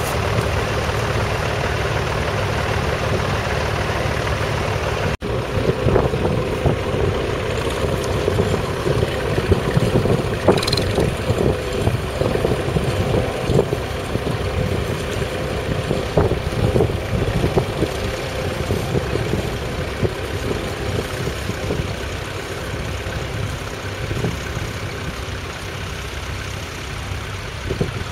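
1957 Nuffield Universal DM4's 3.1-litre four-cylinder diesel engine running steadily under load while the tractor pulls a two-furrow mounted plough through the soil, with scattered clicks and rattles over the engine.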